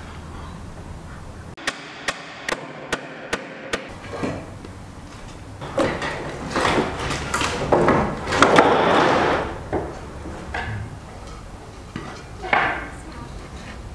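Hammer striking nails into a wooden board: six sharp blows, a little over two a second. Then wooden planks knock and clatter together as boards are pulled from a stack, the loudest part, lasting a few seconds.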